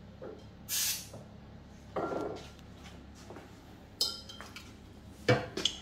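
One short hiss of an aerosol spray can, sprayed onto a tissue, about a second in. After it come quieter handling noises and a few sharp clicks near the end.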